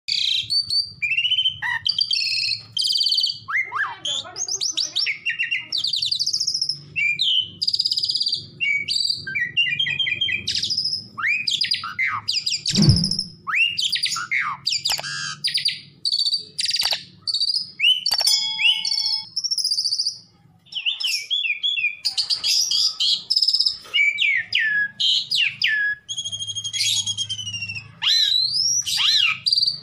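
Asian pied starling (jalak suren) singing a long, varied song of whistles, rising and falling glides, quick chatters and harsh notes with hardly a pause. A single sharp thump comes about 13 seconds in.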